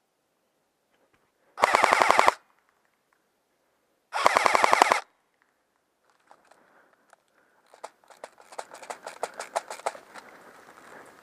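Airsoft gun firing two short full-auto bursts close to the microphone, about two and a half seconds apart, each under a second of rapid, evenly spaced shots. From about six seconds in comes more airsoft fire, fainter and scattered, with a quick run of shots near the end.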